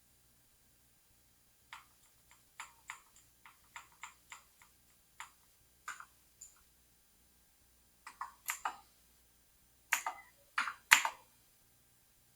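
A run of short, sharp clicks at uneven spacing, from computer input buttons being pressed. The loudest come in a close cluster near the end.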